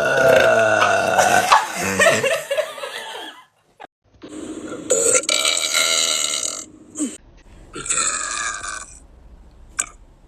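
A person burping loudly on purpose: a long burp of about three seconds, a second long one about four seconds in, then shorter ones.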